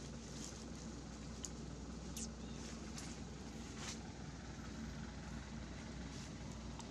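Steady low background rumble with a few short crackles of dry leaves being handled by a baby monkey, the clearest about two seconds in.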